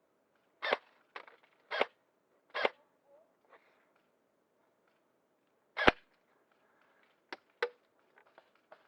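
Pneumatic game guns firing single shots: three cracks about a second apart, a louder one a few seconds later, then two short sharp clicks in quick succession near the end.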